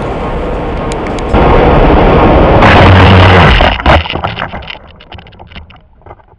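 Twin electric motors of an RC plane and wind rush, heard from a camera mounted on the plane, running steadily and getting louder about a second and a half in. Near the four-second mark it crashes into a tree: a sharp hit, the motor noise cuts out, and a scatter of clicks and crackles follows as it settles in the branches.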